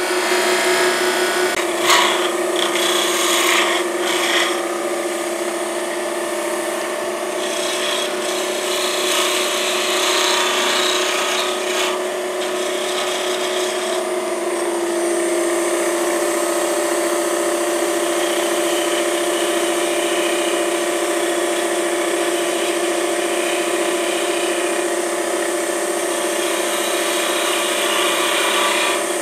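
Grizzly G0733 benchtop wood lathe running with a steady motor whine, which shifts slightly about halfway through, while a hand-held turning tool scrapes and cuts the spinning cedar workpiece, the scraping heavier in patches during the first half.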